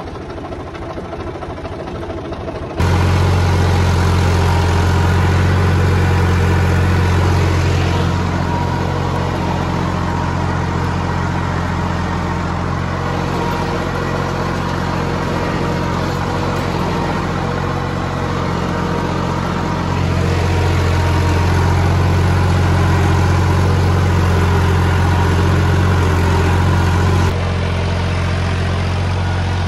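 Tractor engine running steadily with a low hum. It gets suddenly louder about three seconds in, then steps down and up again a few times.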